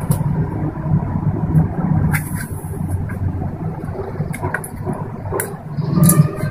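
A steady low rumble with a few scattered light clicks, then near the end a brief clatter as whole cloves and black peppercorns are dropped into oil in a steel pot.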